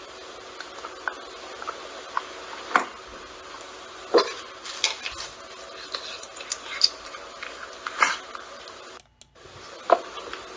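Cat retching as it brings up vomit or a hairball: a series of short, sharp gags spaced a second or so apart over a steady background hiss. The sound cuts out briefly about nine seconds in.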